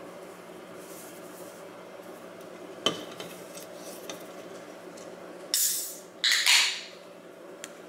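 A can of Rilakkuma cherry-lime drink pulled open by its ring-pull tab: a short hiss of escaping gas as the seal breaks, then a second, longer hiss. A sharp click comes a couple of seconds before.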